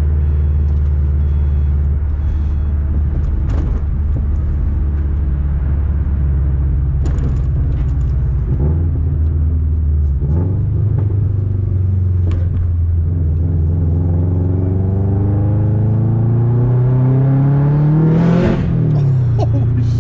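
Turbocharged EJ25 flat-four engine of a roughly 500 hp Subaru WRX heard from inside the cabin. It runs steadily at cruise for about ten seconds, then the pitch climbs as the car accelerates, until near the end the revs drop sharply with a short hiss.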